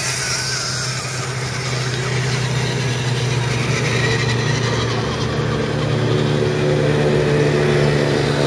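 Electric motors and gear drives of several radio-controlled scale crawler trucks running over a dirt trail, a steady low whine that builds and gets a little louder in the second half as one truck comes close.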